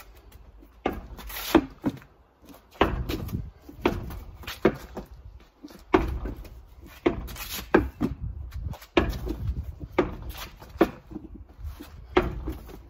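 A large ball thrown two-handed again and again against bifold doors and bouncing on patio paving: a sharp thud every second or so, the strikes unevenly spaced.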